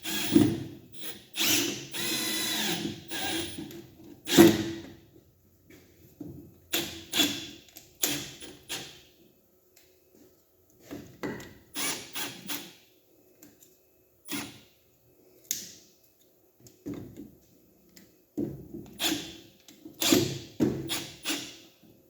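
Milwaukee cordless drill/driver driving a 3-inch wood screw further into wood in short bursts of the trigger, with one longer run near the start and many brief pulses after it.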